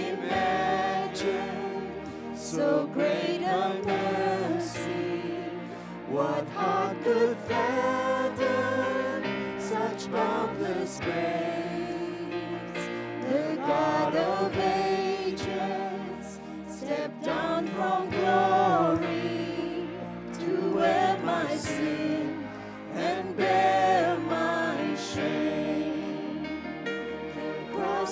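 Live worship band playing a slow contemporary hymn: several voices singing the melody together over keyboard and bass guitar.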